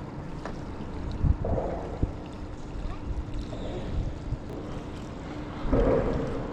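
Small fishing boat on the water: waves lapping at the hull and wind on the microphone, with a couple of dull knocks about a second in. A steady low hum runs from about a second in until near the end, when the water noise swells.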